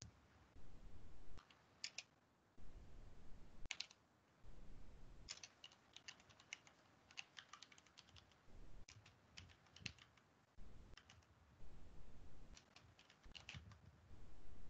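Computer keyboard typing: keystrokes in short, irregular runs, faint, as a terminal command is entered. A low rumble comes and goes underneath.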